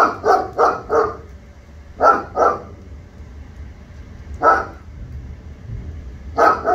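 A dog barking in short runs: four quick barks at the start, two more about two seconds in, a single bark in the middle, and another pair near the end.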